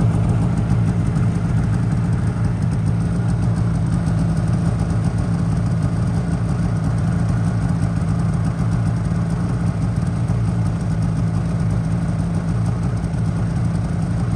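Snowmobile engine idling steadily.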